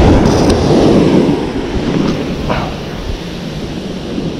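Surf washing up the beach with wind rumbling on the microphone, loudest over the first two seconds and then easing.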